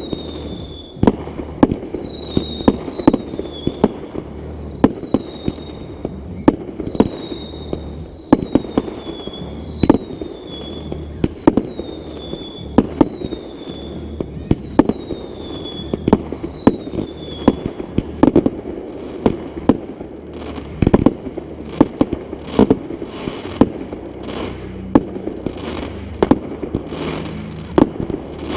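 Fireworks display: a rapid, irregular run of sharp bangs and crackling shell bursts. For the first two-thirds, a high falling whistle recurs about every second and a half.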